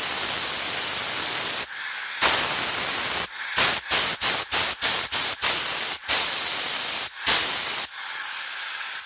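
Compressed air from a 10-gallon air compressor's tank hissing out through an open valve fitting. It runs steadily, stops briefly about two seconds in, then is let out in a quick series of short blasts, about three a second, before running steadily again.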